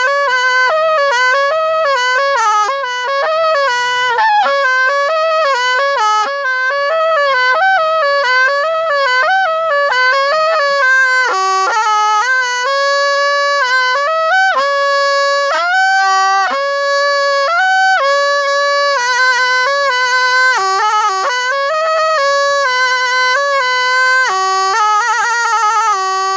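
Thai pi, a reed pipe, playing a solo melody without a break: quick ornamented, wavering notes in the first part, then longer held notes sliding between pitches.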